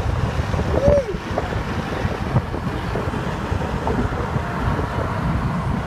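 Wind rushing over the microphone together with the steady road and engine noise of a convertible driving along.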